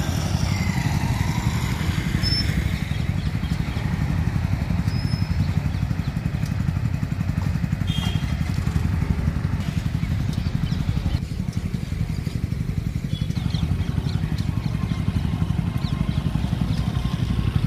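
Motorcycle engine idling close by: a steady, evenly pulsing low rumble that holds without change.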